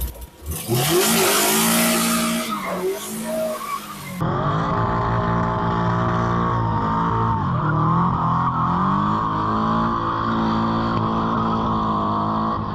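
Mid-engine, rear-wheel-drive Honda Civic EG hatchback with a B18B1 four-cylinder doing donuts: the engine is held up in the revs, rising and falling, while the rear tires squeal and skid. The sound changes abruptly about four seconds in, as to another take of the same.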